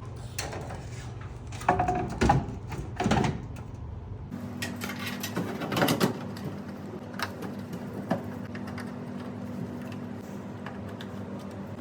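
Knocks, clicks and scrapes as a 500-watt Cooler Master power supply is handled and fitted into a metal PC case, with a low steady hum behind.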